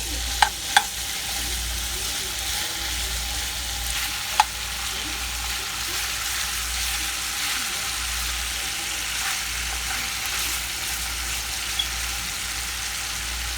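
Strips of boneless chicken thigh sizzling steadily as they brown in hot vegetable oil in a pan. A few sharp taps sound about half a second in and again near four and a half seconds.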